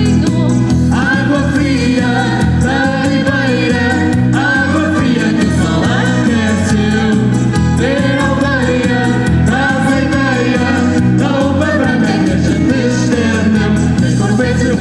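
A band playing with a singer, sung lines with held, wavering notes over a steady bass beat.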